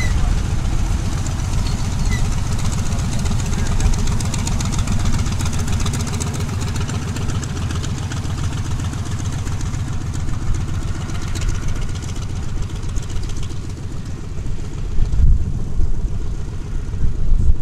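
Douglas SBD Dauntless's nine-cylinder Wright R-1820 Cyclone radial engine running at taxi power, a steady low pulsing drone as the plane rolls along the taxiway. A few louder low rumbles come near the end.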